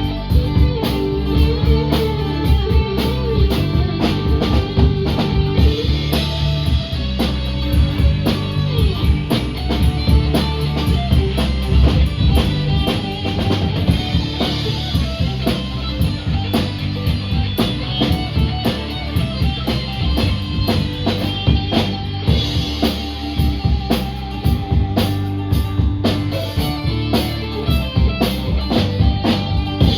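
Live band playing an instrumental passage: guitar and bass over a steady drum-kit beat.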